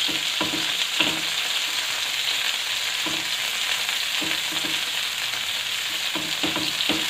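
Minced-mutton kebabs sizzling steadily as they shallow-fry in hot mustard oil, with a few light, irregular knocks and clicks of metal tongs against the pan as the kebabs are turned over.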